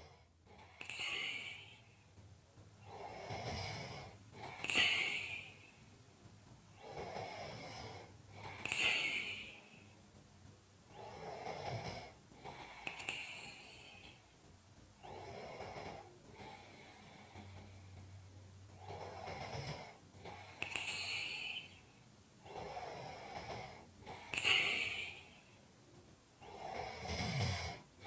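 A person snoring and breathing heavily in a slow, regular rhythm of about one breath every four seconds. Each breath is a low rasp followed by a breathy hiss.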